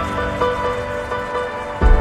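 Background music: held synth tones, with a deep bass hit just before the end.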